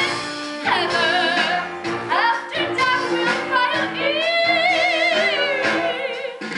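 Show-tune singing with musical accompaniment. A voice holds a long note with wide vibrato from about four seconds in.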